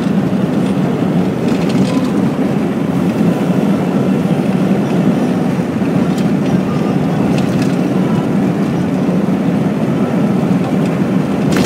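Car driving at a steady speed, heard from inside the cabin as a constant low road and engine rumble, with a few faint clicks.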